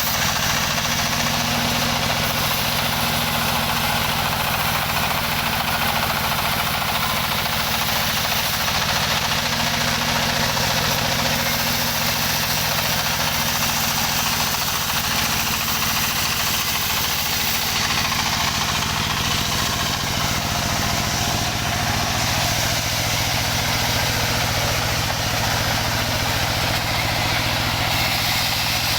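Engine of a wood-sawing machine running steadily at an even speed.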